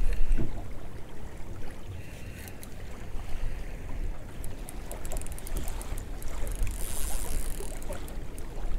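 Wind buffeting the microphone and water slapping against the hull of a small drifting boat, with a louder gust at the start and scattered faint ticks and splashy hiss in the second half.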